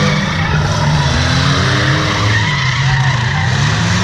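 Car engine running loudly, its pitch rising and falling a little, under a steady rushing noise that could be tire skid.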